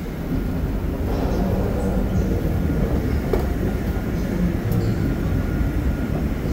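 Underground railway station platform ambience: a steady low rumble that grows louder about a second in, with a few faint clicks.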